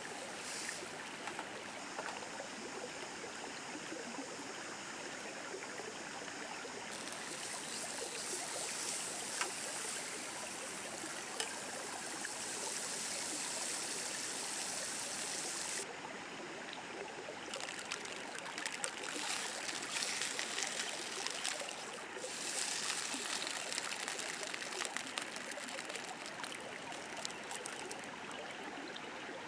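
Steady rush of a flowing river. Over it, a camp frying pan on a portable gas stove sizzles and crackles in stretches as margarine melts and bread fries in it.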